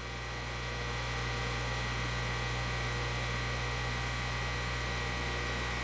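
Steady low electric hum of the Harig surface grinder's spindle motor running, with a thin high whine over a light hiss: a quiet, smooth-running spindle.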